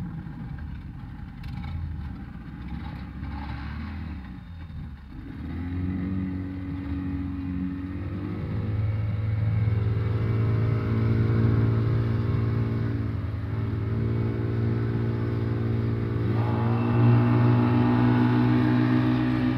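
Speedboat outboard motors speeding up as the boat gets underway. Their pitch climbs about five seconds in and again a few seconds later, holds at a steady high run with the rush of water along the hull, and rises once more a few seconds before the end.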